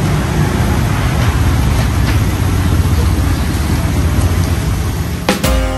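Steady roadside din of passing traffic with a low rumble and faint background chatter. Acoustic guitar music comes in near the end.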